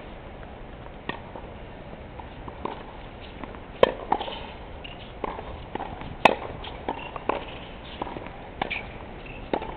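Tennis rally on a hard court: sharp pops of a racket striking the ball, the two loudest about four and six seconds in, with softer knocks of ball bounces and footsteps between them.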